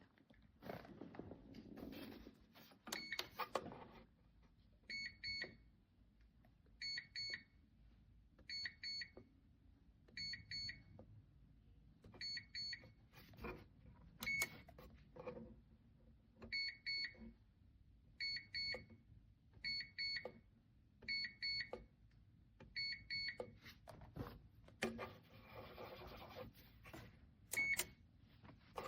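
Electronic beeper of a biometric gun safe sounding short high double beeps, about one pair a second, mixed with a few sharp clicks.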